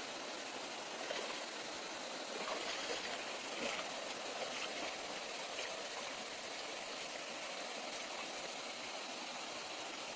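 Steady rush of flowing water, with a few faint brief sounds in the first half.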